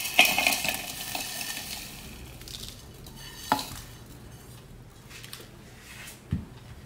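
Roasted whole spices sliding off a plate and rattling into a plastic chopper bowl for the first couple of seconds, then a single sharp knock about three and a half seconds in and a dull thump near the end.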